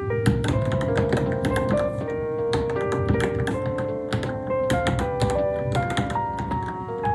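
Fast, irregular typing on a Varmilo Minilo mechanical keyboard, keys clicking in quick succession, over background music with a melody.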